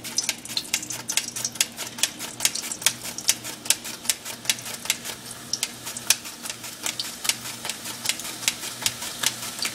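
Raw green banana being pushed across a mandoline slicer's blade in quick strokes, about four sharp clicks a second. The slices drop into hot oil, and a steady frying sizzle builds up from about halfway.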